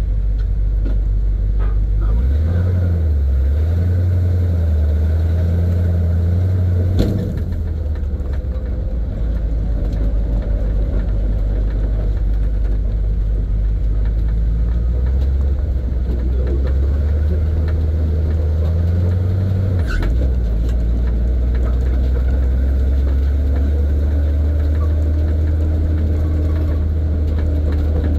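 1970 Chevy C50 dump truck's engine running under way, heard from inside the cab. The engine note climbs, then drops sharply twice, about seven and twenty seconds in, with a short knock at the first drop.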